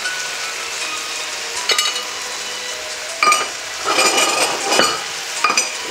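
Meat chunks sizzling as they brown in a hot nonstick pot, with several sharp clinks and scrapes as the utensils strike and stir against the pan, about five of them in the second half.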